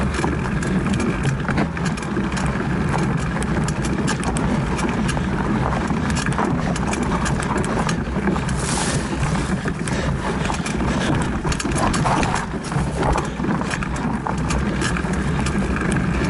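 Mountain bike riding over dirt singletrack with roots and rocks: a steady rumble of tyres and wind, with frequent clicks and rattles from the bike jolting over the rough ground.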